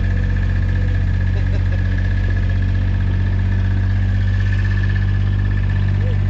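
Engine of a small green utility vehicle running steadily as it drives slowly. It makes a constant low hum with a steady high whine above it.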